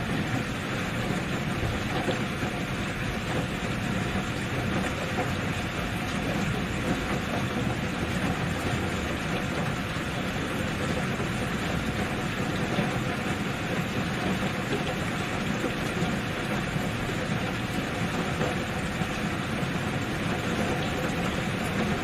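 Steady rain: an even, unbroken rushing noise.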